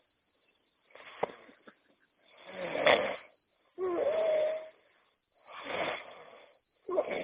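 A man snoring in his sleep: a string of noisy snores, roughly one every second and a half, with short silent gaps between them. One snore about four seconds in carries a whistling tone.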